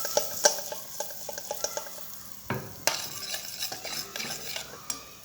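A spoon stirring and clinking against a small pot of olive oil heating with ground spices, over a light frying sizzle. The knocks come irregularly, a few louder ones about half a second, two and a half and three seconds in.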